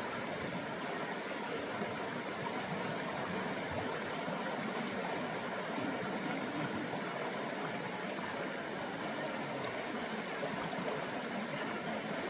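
Flowing stream water, a steady, even rushing without breaks.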